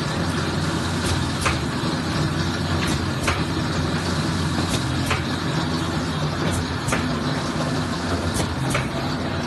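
Semi-automatic film laminating machine running steadily with a low mechanical hum, and a pair of sharp clicks about every two seconds as the sheets cycle through.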